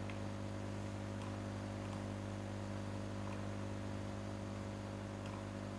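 Steady low electrical mains hum with a few faint mouse clicks.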